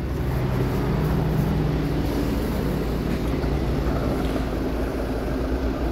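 Fuel pump nozzle dispensing diesel into a car's filler neck: a steady rush of flowing fuel over a low, even hum.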